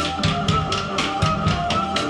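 Live noise rock from a Casio keyboard and drum kit: held keyboard tones over cymbal strokes at about four a second and heavy low drum hits.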